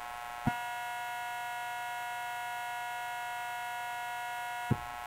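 A steady electrical hum with a higher whine on top. It switches on with a click about half a second in and cuts off with a click near the end.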